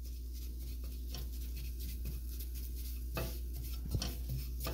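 A utensil stirring and scraping a roux of flour, melted butter and oil around the bottom of a pot on low heat, working the flour into the fat. A couple of stronger scrapes come a little past three seconds in.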